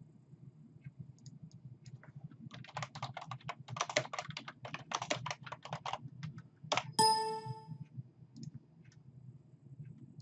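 Computer keyboard typing in quick runs of keystrokes, followed by a single short electronic chime that rings out in under a second, then a few scattered clicks.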